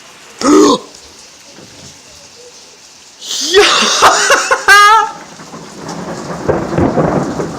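Rain falling steadily, then close thunder: a run of sharp cracks about three seconds in that rolls into a long rumble. A person lets out loud wordless cries, once under a second in and again over the cracks.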